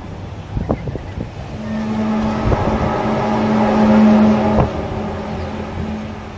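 A steady, loud droning hum at one low pitch begins about a second and a half in and holds over a background rumble, like the reported 'strange sounds' heard in the sky.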